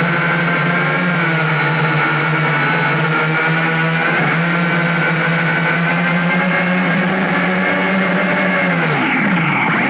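A motor or engine running steadily at high speed with a strong whine. Its pitch dips briefly about four seconds in, then falls steeply near the end before climbing back.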